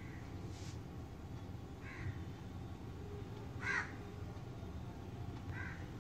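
A bird calling: four short calls about two seconds apart, the third the loudest, over a steady low background rumble.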